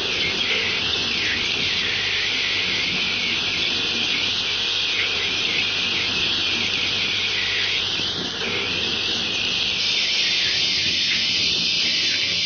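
Automatic screw-driving assembly machine with a rotary indexing table running: a steady high hiss with a faint low hum underneath.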